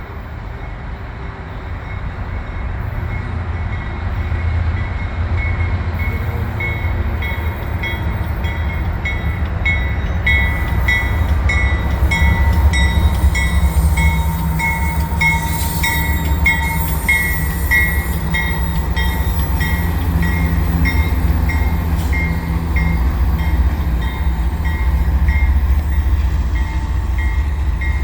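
The old mechanical bell of a CN GE C44-9W diesel locomotive rings in steady strokes, a little under two a second, over the rumble of the locomotives as the freight approaches. The rumble grows louder over the first few seconds.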